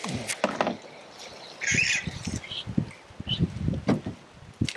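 Dry-bush outdoor ambience: a bird chirps about two seconds in and again briefly later, over scattered low knocks and rustles.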